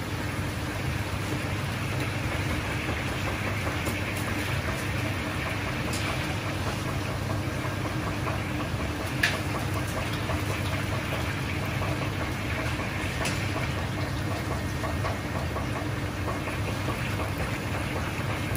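Steady hum and hiss of a commercial kitchen's wok range and extractor. About nine seconds in there is one sharp metal clink, as a wire skimmer is knocked against the draining basket of fried chicken.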